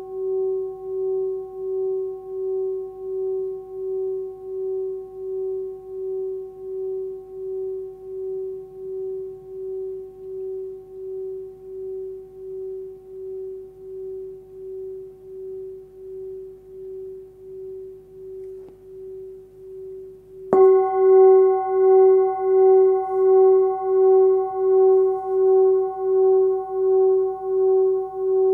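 13.8 cm hand-forged Sun Moon singing bowl, tuned to about 380 Hz (F#), ringing with a slow, regular wobbling pulse and slowly fading. About two-thirds of the way through it is struck again and rings out louder, with brighter higher overtones.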